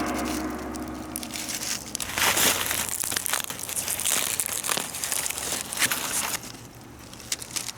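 Crinkling and tearing of wrapping as a bonfire-baked sweet potato is unwrapped: an uneven rustling with many small crackles, dying down near the end.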